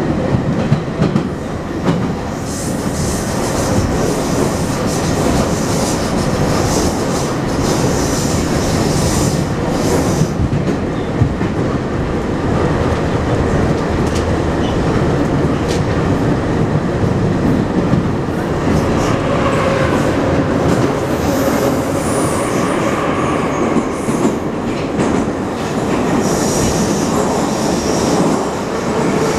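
An 81-717.5 Moscow Metro train running at speed through a tunnel, heard from inside the passenger car. The wheels rumble loudly and steadily on the rails with clacking, under a steady whine, and stretches of high-pitched hiss or squeal come from the running gear a few seconds in and again near the end.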